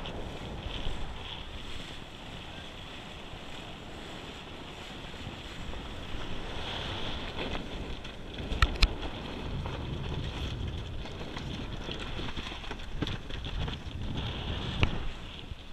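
Wind buffeting the microphone over the rush of water along the hull of a sailboat under way. Two sharp knocks come close together about nine seconds in, and another comes near the end.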